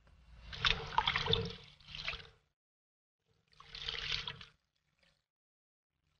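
Water sloshing as hands rub and swish threshed sorghum grain in a basin to wash it. There are three spells of splashing, two close together at the start and one about halfway through, with silent gaps between them.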